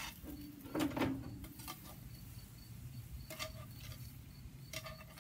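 Metal utensil scraping and clinking against a cast iron skillet as mushrooms are scooped out, in a few separate short clatters, some with a brief ring. An insect chirps faintly and steadily in the background.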